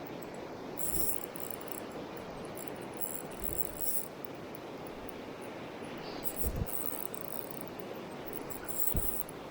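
A fishing reel clicking in four short bursts while a coho salmon is being played on the line, over a steady rush of river water, with a few soft thumps.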